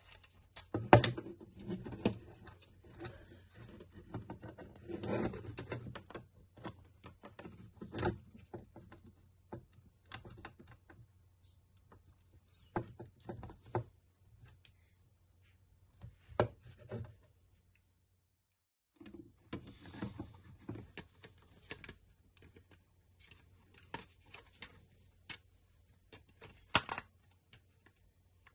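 Irregular clicks, taps and rubbing of hard plastic as the TS-836 plug-in wattmeter's case is handled and its parts fitted together, with a sharp knock about a second in.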